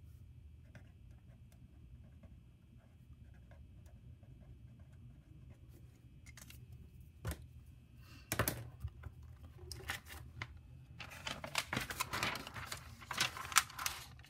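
A felt-tip pen scratching faintly on notebook paper. From about eight seconds in, the spiral notebook's pages are handled and turned, making loud, irregular rustling and flapping of paper.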